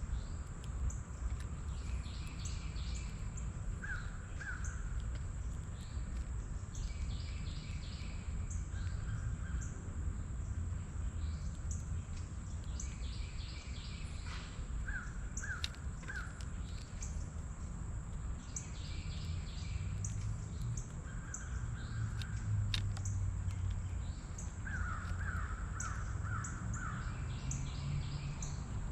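Wild birds calling around a feeder: short harsh calls in runs of two to five, and a higher call repeated every few seconds, over a steady low rumble.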